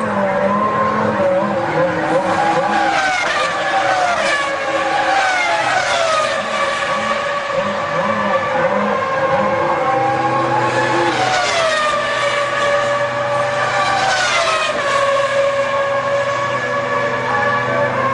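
1999 Formula One cars' V10 engines in the pit lane: high-pitched engine notes that fall in pitch several times as cars rev and pass, over a steadier held engine note.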